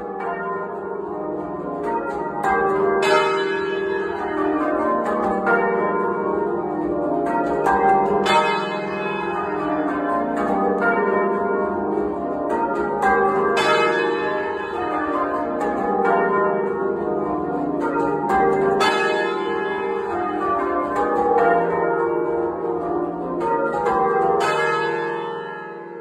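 A ring of full-circle church bells ringing rounds, heard from inside the bell chamber: loud, overlapping strikes in a steady repeating cycle, with a long ringing hum under them. The sound fades away at the very end.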